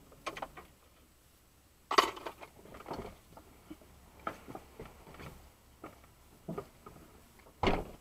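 Irregular clicks, knocks and rattles close to the microphone inside the truck cab, with a louder knock about two seconds in and another near the end.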